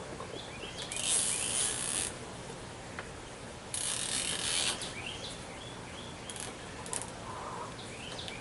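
Plastic zip tie ratcheting as it is pulled tight, twice, each pull a rasp of about a second. Small birds chirp in the background.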